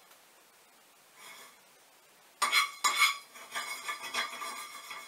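Spoon stirring black peppercorns in a dry skillet while they roast: two sharp clanks against the pan about two and a half seconds in, then rattling and scraping of the spoon and peppercorns in the pan.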